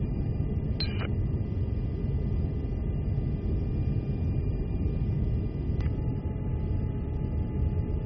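Steady rumble of aircraft engine and airflow noise inside an air-refuelling tanker's boom operator station, with a faint click about a second in and another near six seconds.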